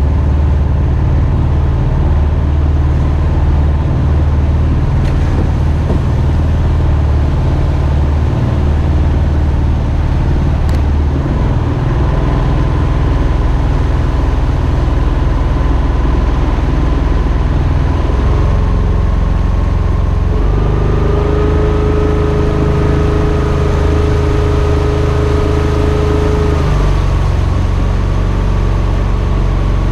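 Mokai jet boat's Subaru EX21 single-cylinder engine running steadily under way, exhausting through a water-cooled muffler. A whining tone grows louder and rises in pitch about two-thirds through, then falls back shortly before the end.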